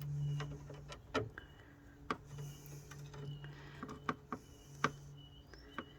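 Scattered sharp clicks and knocks of hands and tools working at a car radiator's bottom hose and clamp, over a steady low hum.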